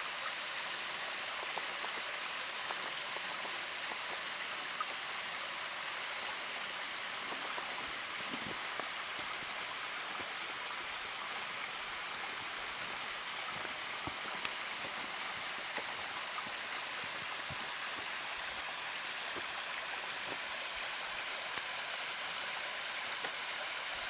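A low-flow waterfall spilling and splashing down rock: a steady, even hiss of falling water, with faint splashes and drips ticking now and then.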